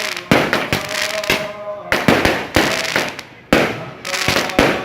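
Fireworks going off in a rapid, irregular string of sharp bangs, about two a second.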